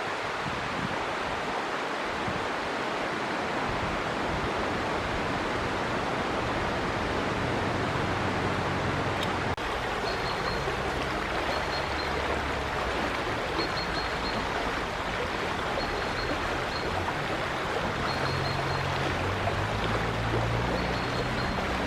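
River water flowing steadily. From about halfway through, a bird gives a short high call every couple of seconds, over a faint low rumble.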